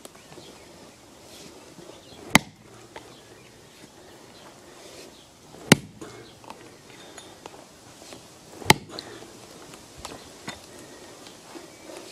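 A dull axe chopping into a plum tree stump: three sharp strikes about three seconds apart, with fainter knocks between.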